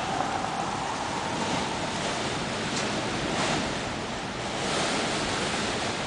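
Gusty wind rushing through bare tree branches: a steady, loud rushing noise that swells about three and five seconds in.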